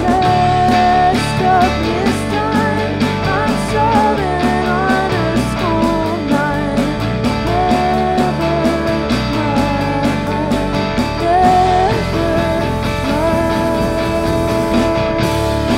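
Indie rock band playing a mellow song live: semi-hollow electric guitar, electric bass and drum kit, with a woman singing lead.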